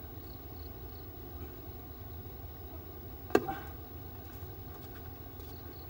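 Steady low background rumble, with one sharp knock a little past halfway through.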